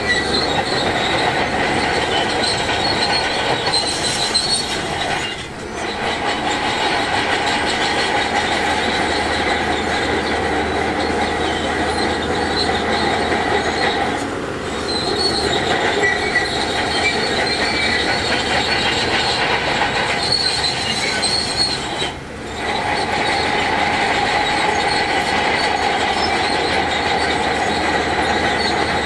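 Steel crawler tracks of a Shantui DH17C2 bulldozer squealing as it moves and pushes rock, over its diesel engine. Steady shrill tones run throughout. The sound dips briefly three times, about every eight seconds.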